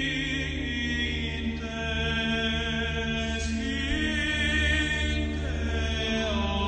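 Male voices singing Romanian Orthodox Byzantine chant: a slow melody with gliding ornaments over a steady low held drone (the ison).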